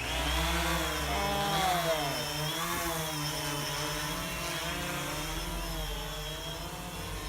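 DJI Phantom 2 quadcopter's electric motors and propellers whirring, the pitch rising and falling as the rotor speeds change.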